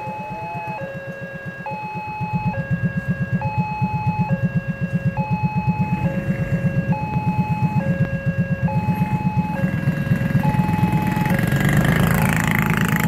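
Railway level-crossing warning alarm sounding a repeating two-tone electronic signal, switching between a higher and a lower tone about every second, warning that a train is approaching. Under it, a motorcycle engine idles with a fast low throb that grows louder near the end.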